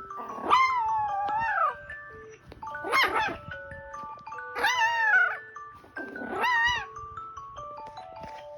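A Bichon frisé puppy barking at an alarm, four drawn-out, wavering yelps. Under them the alarm plays a melody of short stepped notes.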